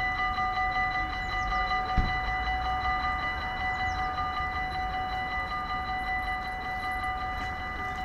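Dutch level-crossing warning bells ringing in a rapid, steady rhythm while the crossing barriers lower, with a single knock about two seconds in. The bells stop near the end as the barriers come down.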